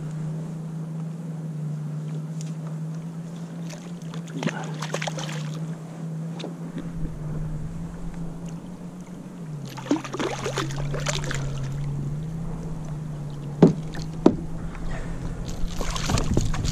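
A hooked bass splashing at the surface beside a kayak in several bursts as it is brought alongside and grabbed by hand, with two sharp knocks in between. A steady low hum runs underneath.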